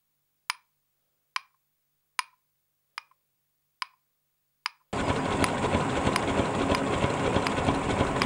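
Sharp taps of a small pestle pounding in a metal hand mortar, six strikes a little under a second apart against near silence. About five seconds in, a loud steady rushing noise cuts in suddenly, with the taps going on through it.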